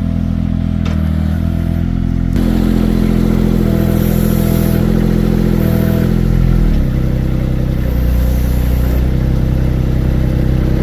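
Loud background music of sustained, droning chords that change abruptly about two seconds in and again near the seven-second mark.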